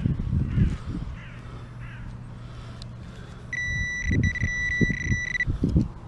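Metal detector sounding a steady high-pitched target tone for about two seconds, breaking briefly a few times, with low thumps and rustle of the detector being swept.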